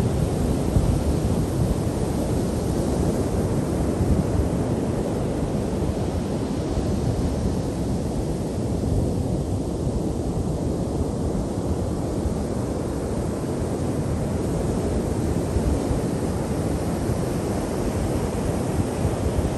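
Ocean surf breaking and washing up a sandy beach as a steady low rush. The hiss eases a little about halfway through, then builds again. Wind buffets the microphone throughout.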